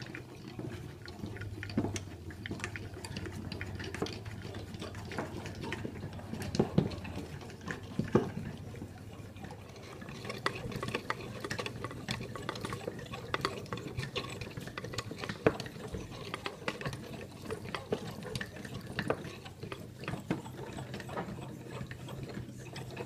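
Hand-cranked wooden cam toys turning: irregular clicks and knocks of the wooden cams, followers and crank, with a few louder knocks, over a steady low hum.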